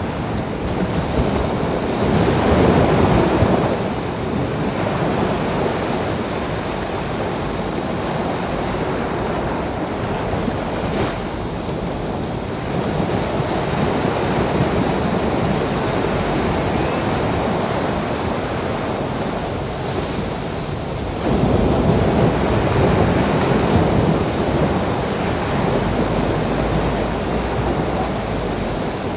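Ocean waves washing ashore, a steady rush of surf with louder swells as waves break, about two seconds in and again from about twenty-one seconds, with some wind on the microphone.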